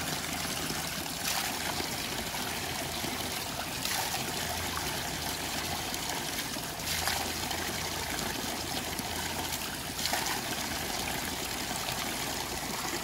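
Cold mountain spring water trickling and running steadily, with a few faint knocks about three seconds apart.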